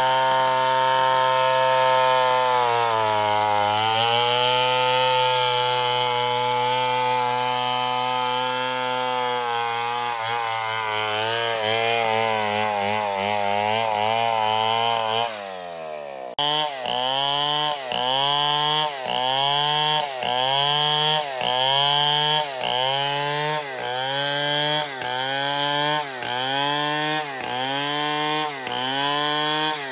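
Stihl 070 two-stroke chainsaw ripping a merbau log lengthwise into beams. For about the first half it runs steadily under load at full throttle, its pitch sagging and wavering. After a brief drop about halfway through, its engine speed rises and falls in a steady rhythm, roughly once every three-quarters of a second.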